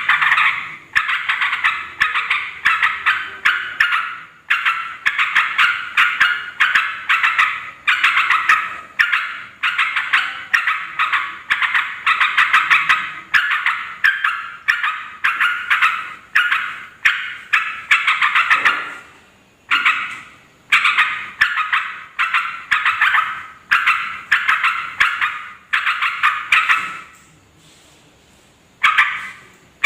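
Yellow-vented bulbuls chattering noisily: rapid, bubbly call phrases of about a second each, following one another almost without pause, with brief breaks about two-thirds of the way through and again near the end.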